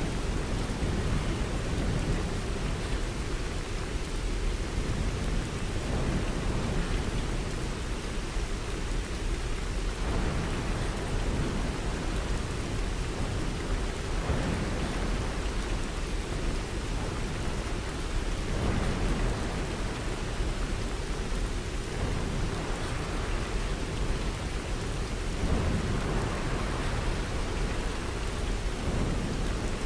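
Steady rain falling, with low rumbles of thunder swelling every few seconds.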